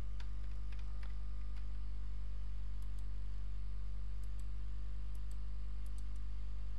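Steady low electrical mains hum, with faint computer mouse clicks scattered over it, several in quick pairs.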